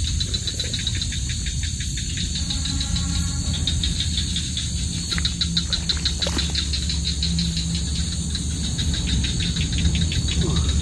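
Night insects calling in a rapid, steady pulsing trill, over a low steady hum.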